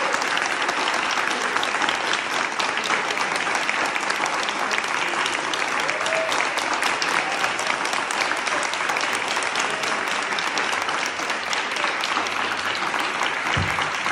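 Audience applauding: many hands clapping, steady throughout.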